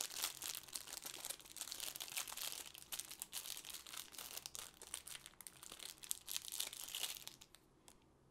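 Plastic packaging crinkling and rustling as it is handled, with many sharp crackles, stopping near the end.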